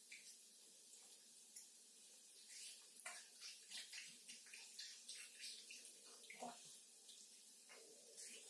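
A cat chewing and chomping juicy watermelon: faint, wet, irregular mouth smacks, several a second, starting about three seconds in.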